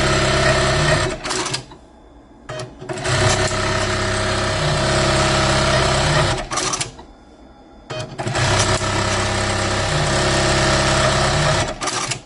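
Juki LBH-1790S lockstitch buttonhole machine sewing buttonholes at high speed in repeated cycles. There are three runs: a short one at the start, then two of about three and a half seconds each, and its hum steps between a lower and a higher pitch within each run. Each run stops abruptly, and brief short bursts fall in the pauses between cycles.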